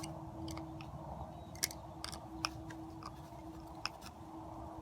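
Faint, scattered light clicks of a hand tool working on small screws as they are tightened down, over a faint steady hum.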